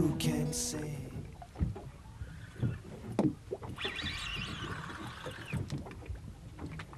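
Sea-boat sounds while a fish is pumped up on a heavily bent boat rod: water sloshing against the hull, wind and a low rumble, with a few short knocks and a brief higher whirring about four seconds in. A song with guitar fades out in the first second.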